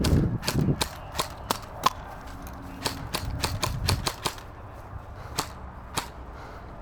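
Airsoft guns firing rapid, irregular single shots, dense for about four seconds and then thinning to a couple of last shots.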